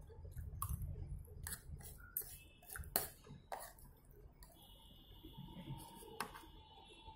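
Faint eating sounds: chewing, with a few sharp clicks of a metal fork and knife against a plate. A faint steady whine comes in about halfway through.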